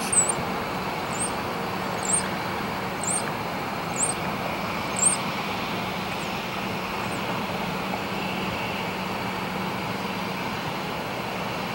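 Steady distant rumble of a diesel switcher locomotive at work, with a constant low hum and street-traffic noise behind it. About six short, high chirps come roughly once a second over the first five seconds, then fade.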